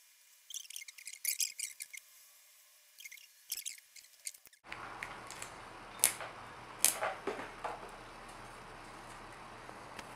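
Handling noise from working on small electronics parts and wires: bursts of high crackling and clicking in the first half, then, after a sudden change to a steady background hiss, a few sharp clicks about half a second to a second apart.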